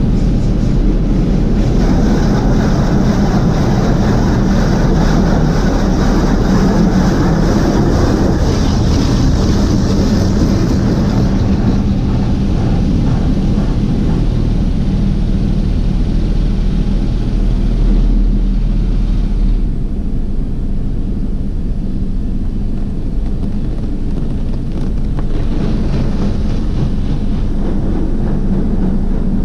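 Automatic drive-thru car wash machinery running around the vehicle: a loud, steady rushing of spray or blowers with a low hum underneath. The hiss thins partway through, the sound eases off for a few seconds, then picks up again near the end.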